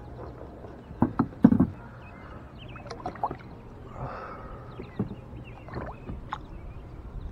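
A few sharp knocks against a plastic kayak about a second in, then water sloshing and gurgling as a large catfish is lowered over the side and released.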